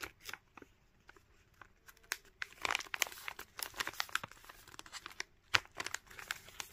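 Paper bubble mailer being sealed by hand: the flap folded over and pressed and rubbed down, the paper and bubble lining crinkling and crackling in scattered bursts, busiest a little before halfway, with one sharper click later on.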